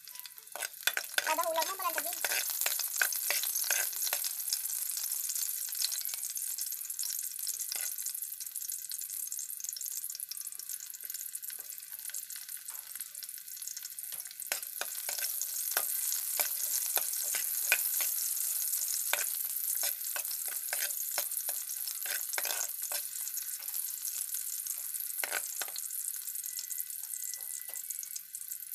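Chopped garlic and sliced onion sautéing in hot oil in a wok: a steady sizzling hiss with frequent crackling pops.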